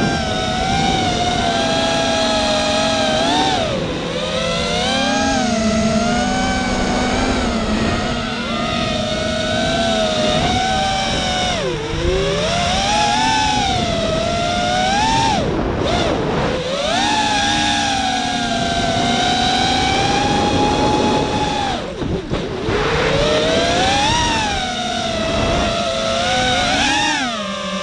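Walkera F210 quadcopter's brushless motors and HQ 5x4.3x3 tri-blade props whining, the pitch rising and falling constantly with the throttle, dipping away briefly a couple of times, heard from the onboard camera.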